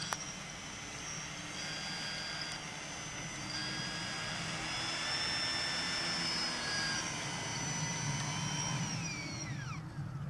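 Electric motor and propeller of a radio-controlled model FW190 running with a high whine at part throttle, the pitch shifting slightly, then winding down in a falling glide near the end as the throttle is closed.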